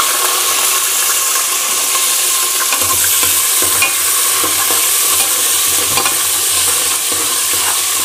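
Sliced onions sizzling in hot oil with roasting coriander seeds, mustard seeds and curry leaves in a pressure cooker pot, a steady frying hiss. A metal ladle stirs them, scraping and knocking lightly against the pot a few times.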